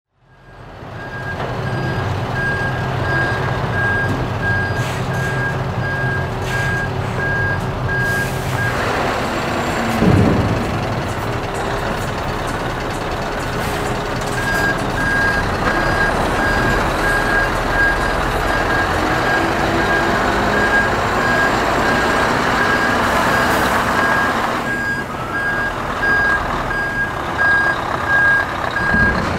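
Scania R620 hook-lift truck's V8 diesel running while it manoeuvres, its reversing alarm beeping in an even repeating pattern. The beeping stops for several seconds around a third of the way in, with a brief loud burst about ten seconds in, then starts again and runs on.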